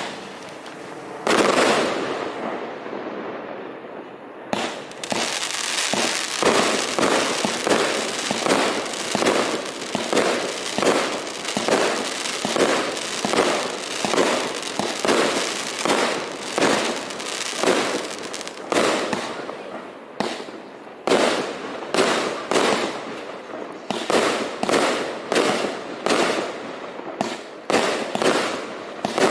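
A 269-shot 25 and 30 mm compound firework cake firing: a first shot about a second in, another near four and a half seconds, then a steady run of sharp shots about two a second, each with a short tail. There is a brief lull near twenty seconds before the shots resume.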